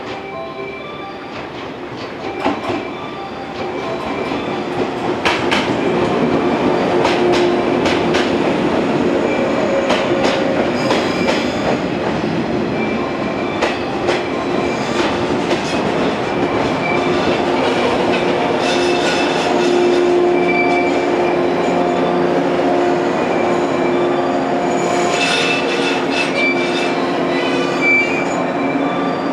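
Yellow 115-series electric train pulling into a station platform and braking to a halt. Its wheels clack over the rail joints as it comes in, over a steady tone from the running gear, and its brakes squeal near the end as it stops.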